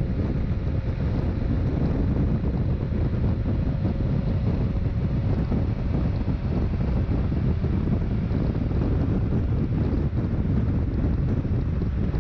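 Wind rushing over a helmet-mounted microphone on a motorcycle at motorway speed, loud and steady, with a low rumble of the bike and road underneath.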